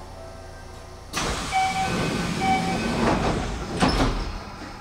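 A commuter train's sliding passenger doors working at a station stop. A sudden rush of air starts about a second in, a two-note chime beeps twice, and a sharp knock comes near the end.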